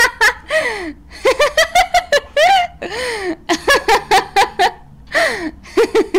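High-pitched laughter in rapid bursts, broken by three gasping in-breaths.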